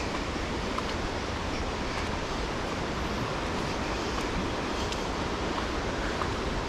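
Steady rushing of falling water from a stream or waterfall, with a few faint ticks over it.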